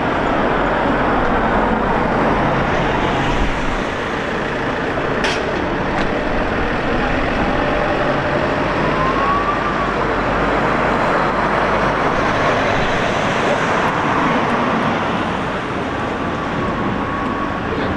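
Steady road-traffic noise of a city street, with a sharp click about five seconds in.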